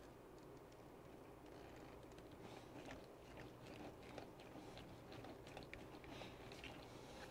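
Faint, scattered small clicks and scrapes of a hex driver turning screws out of the plastic underside of an RC truck chassis.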